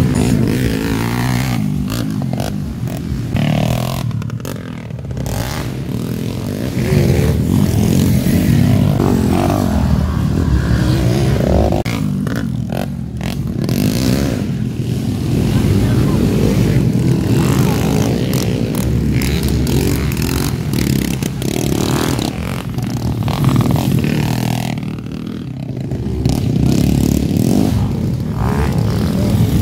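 Motocross dirt bike engines running and revving during a race, growing louder and softer several times.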